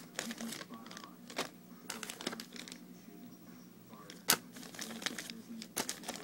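Packaging being handled: crinkling and rustling of plastic bait packs and a printed card, with scattered clicks and one sharp tap about four seconds in.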